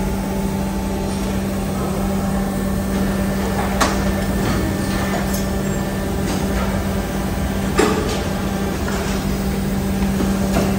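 Steady hum of a die-casting machine's hydraulic drive, holding one low tone, with a sharp metallic clank about four seconds in and another near eight seconds, and lighter knocks between.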